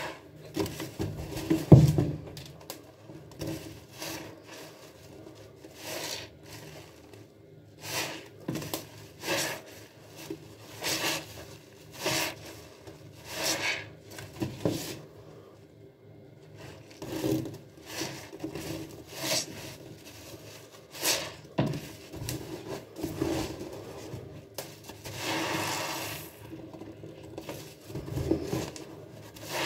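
Kitchen sponge loaded with foamy cleaner, paint, glitter and seed beads squeezed over and over in the hands, a wet squelch with each squeeze about every second or two. The loudest squeeze comes about two seconds in.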